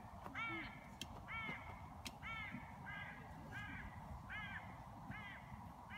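An animal calling in a steady series of short, high calls, about three every two seconds.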